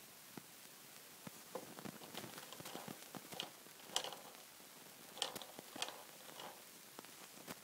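Purple plastic flower spinner on a Fisher-Price Laugh & Learn Puppy's Activity Home toy being spun by hand, giving a run of irregular faint clicks and rattles that are loudest about four seconds in.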